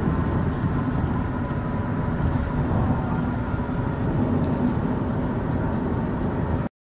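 Steady road and engine noise heard inside a vehicle's cabin while it drives along a freeway. It cuts off suddenly near the end.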